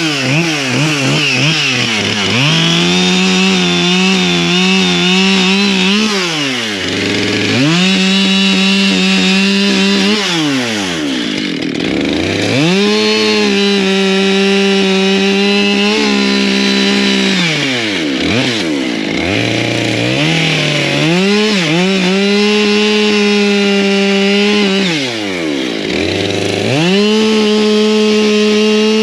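Husqvarna two-stroke chainsaw cutting firewood: the engine revs up to full throttle and holds a steady high pitch through each cut, then drops back toward idle between cuts, about five times.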